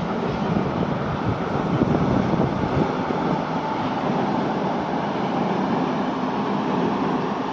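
ED250 Pendolino electric multiple unit crossing a steel truss railway bridge, a steady rolling rumble of the train on the bridge.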